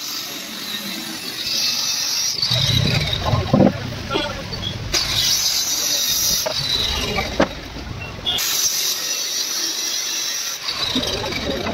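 Handheld electric saw cutting a board, a loud high-pitched whine with hiss as the blade runs through the sheet. It cuts in several runs, eases off for about two seconds around eight seconds in, then bites in again near the end.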